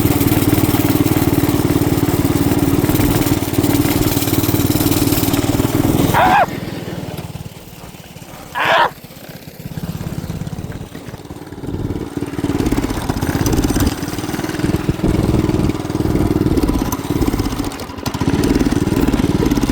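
Motorcycle engine running, then dropping away suddenly about six seconds in and coming back unevenly from about twelve seconds, surging up and down. The bike is not taking throttle, which the rider puts down to an air filter packed with snow.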